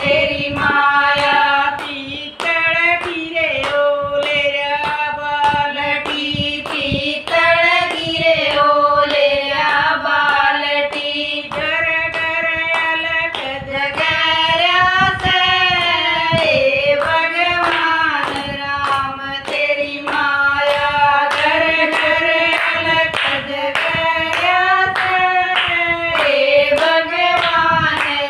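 Three women singing a Haryanvi jakdi, a women's wedding folk song, together, keeping time with regular hand claps.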